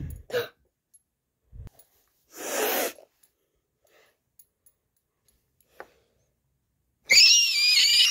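A single loud, breathy puff of breath about two seconds in, with a couple of faint knocks. Near the end a child's high-pitched squealing voice starts, wavering in pitch.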